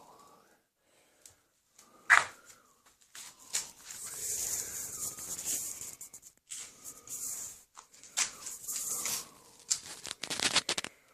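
Hand abrasive work on a horn rifle muzzle end: stretches of rough rubbing strokes as the horn is shaped by hand. A sharp knock about two seconds in is the loudest sound.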